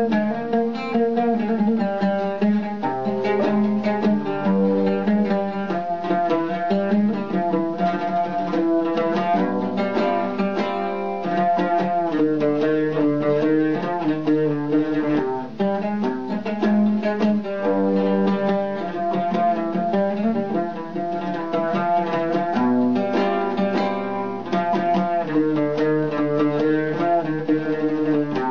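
Solo oud playing a melody in quick plucked notes.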